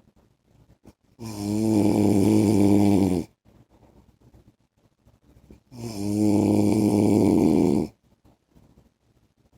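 A man snoring in his sleep: two long, loud snores, each about two seconds, with quiet pauses between them.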